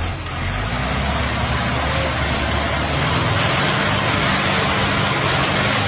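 Heavy machine's engine running steadily with a low hum, starting suddenly and holding an even level.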